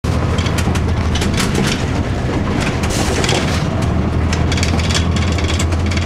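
Inside a 2002 Blue Bird CS transit bus: its Cummins ISC diesel engine runs with a steady low drone, while the cabin's panels and fittings keep up a quick, uneven rattling.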